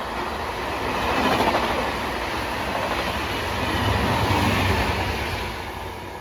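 A train running along the track, its wheels on the rails making a loud, steady rumble. The noise swells twice and eases off near the end.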